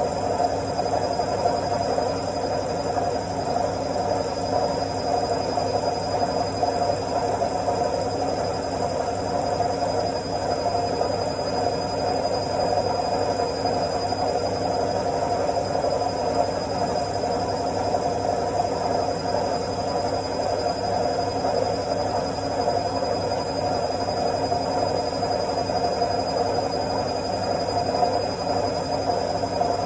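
Washing machine on its spin cycle: a steady whirring drum sound at an even level, with thin high whining tones above it.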